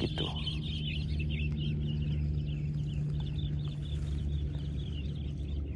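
Birds chirping in a rapid, continuous chatter that thins out after about three seconds, over a steady low machine hum.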